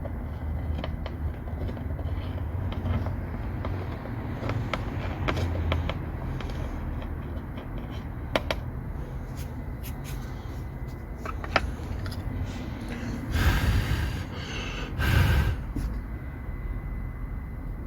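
Scattered small clicks and knocks of parts and tools being handled, over a steady low hum, with two short, loud rushing bursts near the end.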